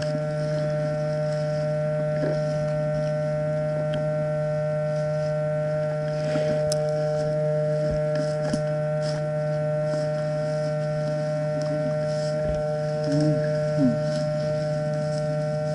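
A steady hum of several fixed tones runs under everything. Faint scattered ticks and rustles come from footsteps and brushing through woodland undergrowth, and a couple of short pitched sounds appear near the end.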